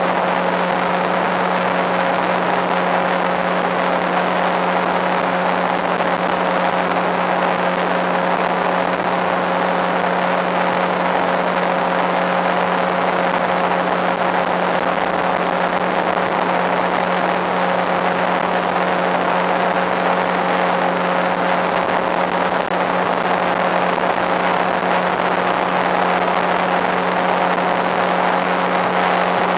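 A boat's motor running at a steady cruising speed, heard from aboard: an even, unchanging hum made of several steady tones over the rush of the hull through the water.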